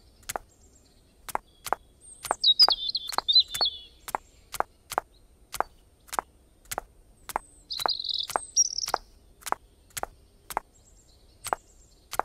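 A steady series of sharp clicks or knocks, about three a second, with two short bursts of bird chirping, about two and eight seconds in.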